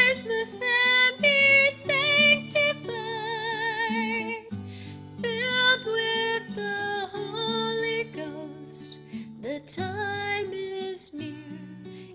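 A woman singing into a microphone with vibrato on her held notes, accompanying herself on a strummed acoustic guitar.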